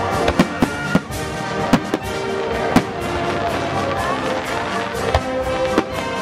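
Fireworks going off in a string of sharp, irregularly spaced bangs over loud orchestral music with brass.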